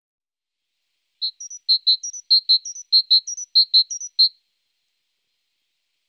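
A small songbird singing one rhythmic phrase of short, sharp notes that alternate between lower and higher pitches at about five to six notes a second. It starts about a second in and stops after about three seconds.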